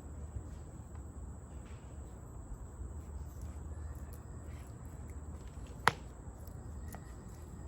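Quiet outdoor ambience under a steady low rumble, with one sharp click about six seconds in and a fainter click about a second later.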